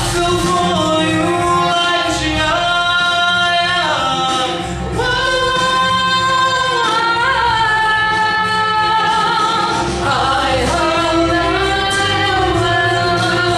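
A solo voice singing over a backing track, holding long notes and sliding between pitches. There is a short breath-break about four and a half seconds in.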